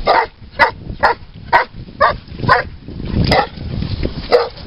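A dog barking repeatedly, about eight sharp barks at roughly two a second, with a short pause before the last one. It is barking in alarm at a train.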